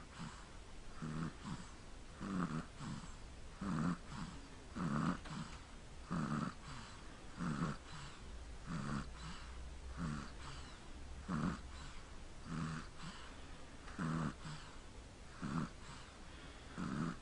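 Snoring in sleep: short snores repeating evenly, about one a second.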